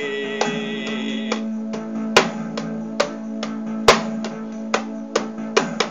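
Guitar-led instrumental backing music with held chords, and a hand-held frame drum struck by hand. From about two seconds in come sharp, uneven taps, roughly one a second, more crowded near the end.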